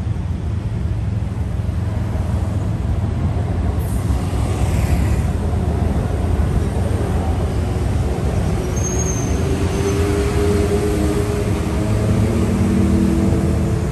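City street traffic: a steady rumble of passing motor vehicles, with a brief hiss about four seconds in and a vehicle engine's steady hum over the last few seconds.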